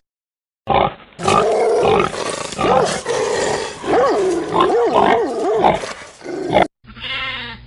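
An animal calling for several seconds, its pitch wavering up and down. Near the end it cuts off and a short, different sound begins.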